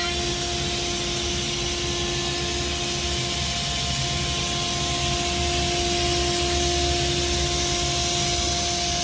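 CNC milling machine cutting an EDM electrode: the spindle's steady high whine over a constant rushing hiss.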